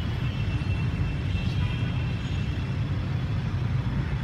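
Steady low rumble of distant road traffic, with a few faint high tones above it.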